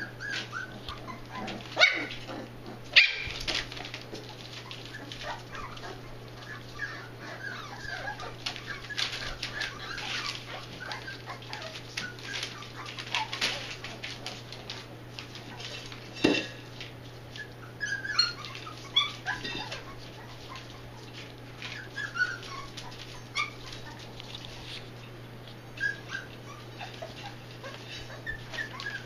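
Young puppies whimpering and squeaking in short, high calls, with newspaper crinkling and rustling under their paws. A couple of sharp knocks stand out near the start and another midway.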